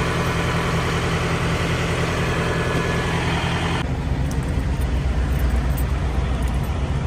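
Heavy diesel engine idling steadily with a low drone. A little under four seconds in, the higher hiss drops away and the low rumble comes forward.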